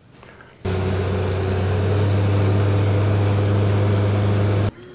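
Boat's outboard motor running steadily at speed as the boat travels across the lake, a strong low hum with a rush of wind and water over it. It cuts in abruptly about half a second in and stops abruptly near the end.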